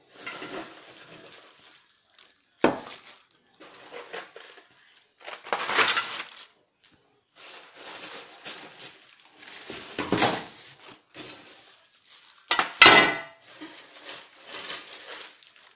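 Metal wire grill grates of a Barbecook smoker clinking and clanking as they are handled, with plastic wrapping rustling around them. Three sharper knocks stand out, the loudest about three-quarters of the way through.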